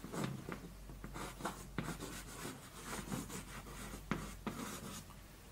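Chalk scratching and tapping on a blackboard as words are written by hand, in short irregular strokes.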